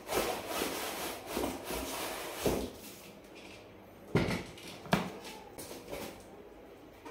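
Cardboard shipping carton handled on a plastic table: the cardboard rubbing and scraping for the first few seconds, then three dull thuds of the box knocking down on the table as an inner carton is slid out, and a softer knock near the end.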